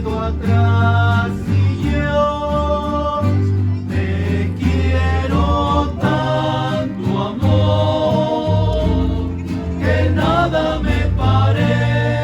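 A rondalla: several voices singing a song together to guitar accompaniment, with a steady bass line underneath.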